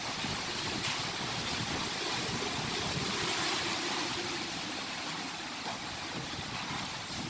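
Typhoon winds rushing and gusting without a break, swelling slightly around the middle.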